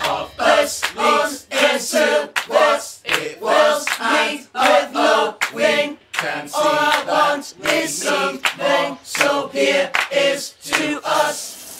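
Several voices singing short wordless syllables together a cappella, with no instruments, in a quick, even rhythm; the singing stops just before the end.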